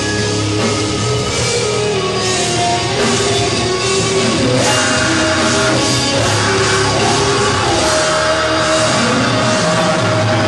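Death metal band playing live, loud and continuous, with heavy guitars and a drum kit.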